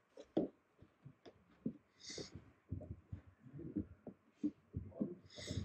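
Faint low thumps and quiet, muffled off-microphone talking in a room, with two short hissing sounds. The loudest thump comes about half a second in.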